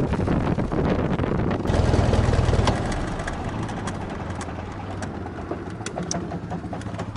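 The Fox Moth's de Havilland Gipsy Major inverted four-cylinder engine running at taxi power. It gets a brief burst of throttle about two seconds in, then settles back to a quieter idle.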